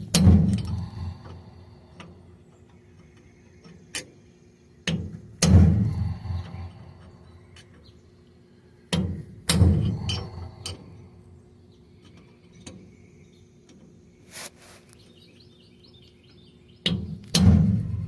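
Hammer blows on a steel punch driving a bearing race out of a rear differential carrier: sharp metallic strikes, each ringing briefly, coming singly or in pairs at irregular gaps of a few seconds.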